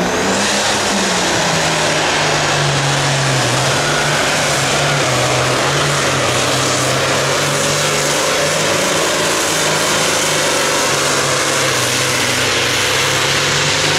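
Allis-Chalmers Two-Twenty classic super stock pulling tractor's turbocharged diesel engine running flat out under load while pulling a weight-transfer sled. The engine note sags slightly a couple of seconds in, then holds steady.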